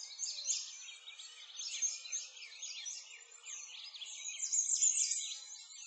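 Many birds chirping and singing at once, a dense chorus of overlapping short chirps and quick whistled sweeps.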